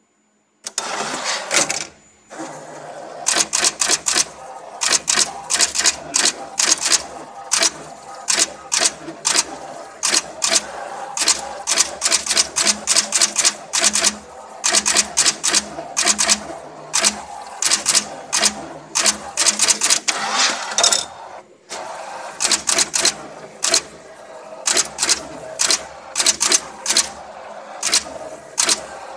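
Automatic axial-lead component insertion machine running, its insertion head clacking sharply about two to three times a second over a steady motor hum, with a brief pause about 2 seconds in and again about 21 seconds in.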